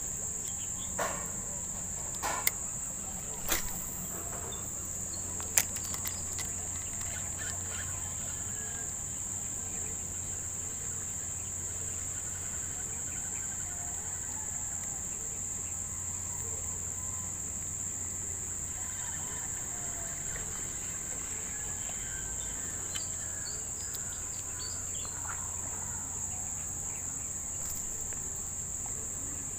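Steady, high-pitched chorus of insects trilling without a break, with a few sharp clicks in the first six seconds.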